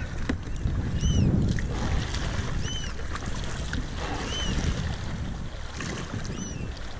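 Wind buffeting the microphone over kayak paddle strokes dipping and splashing in open water. A thin high chirp repeats every second or two.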